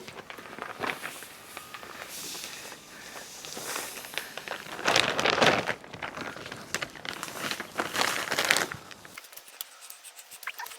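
Kiln-dried sand being worked over block paving: irregular gritty scraping and rustling strokes, the loudest about halfway through.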